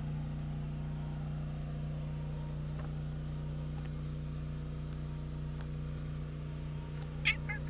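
Steady low hum like an engine running, unchanging throughout, with one short high-pitched call about seven seconds in.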